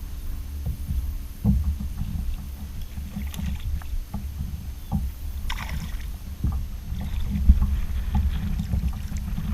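Knocks and thumps on a small fishing boat over a steady low rumble, with one sharper bang about seven and a half seconds in.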